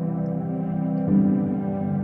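Ambient background music of sustained, held chords; the chord changes about a second in.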